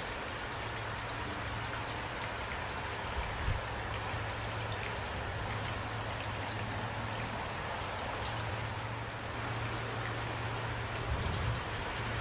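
Steady rain falling, with individual drops tapping and a low steady hum beneath; a couple of soft thumps stand out briefly.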